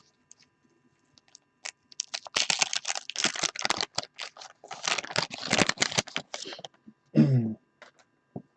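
Trading cards and their wax-paper pack being handled: a few seconds of rapid clicking and crinkling as the cards are flipped through, followed by a brief vocal sound.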